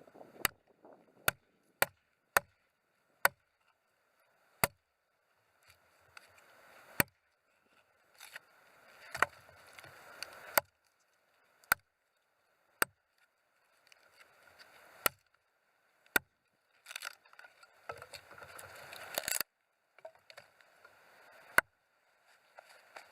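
Gränsfors Bruks outdoor axe striking wood, about fifteen sharp knocks at uneven intervals, with rustling and scraping of the wood between strikes.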